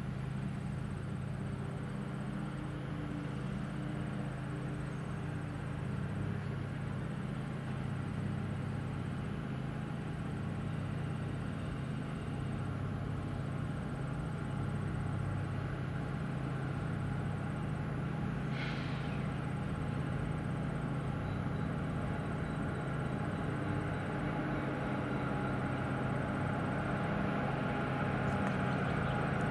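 Norfolk Southern diesel-electric locomotives leading a freight train, their engines running with a steady low drone that grows slowly louder as the train approaches.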